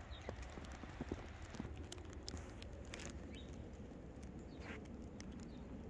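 Faint footsteps in fresh snow: soft, irregular crunches over a low, steady background noise.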